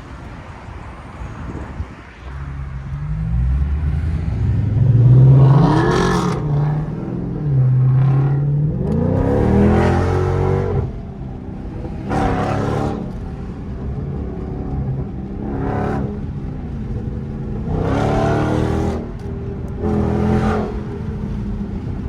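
Dodge Charger V8 engine accelerating hard and revving, the pitch sweeping up in repeated surges after a quieter start.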